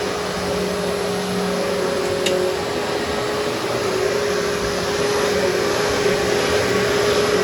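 Vacuum cleaner running steadily while vacuuming carpet: an even rush of air over a steady motor hum.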